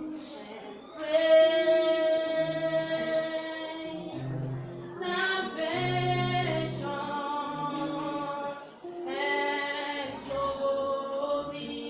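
Choir singing with female voices prominent, holding long notes over a low bass line, with a short break a little before the ninth second.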